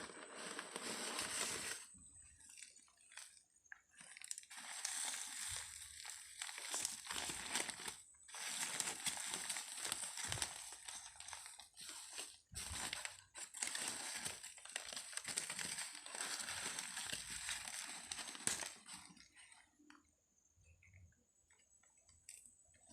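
Packaging being crinkled and unwrapped by hand in irregular stretches of rustling, with a couple of brief low knocks about halfway through.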